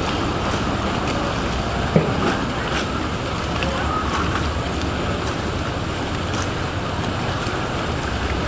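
Vaporetto water-bus engines running, with water churning on the canal; a single knock about two seconds in.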